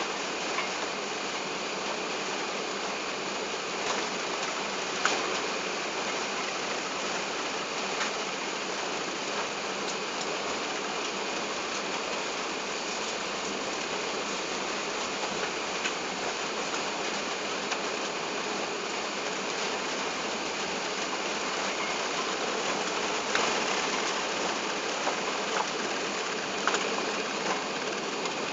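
Airbus A380 cabin noise while the airliner taxis: a steady, even rush from the engines at low thrust and the cabin air, with a few light clicks and knocks scattered through.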